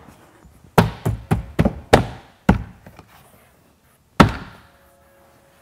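Palm of the hand smacking a BMW E46 rear door trim panel to snap its plastic retaining clips into the door. There are about six quick knocks in the first two and a half seconds, then one louder thump about four seconds in.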